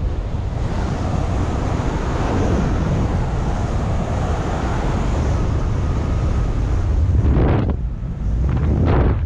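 Wind buffeting a paraglider pilot's microphone: a loud, steady rushing with a deep rumble, dipping briefly about eight seconds in.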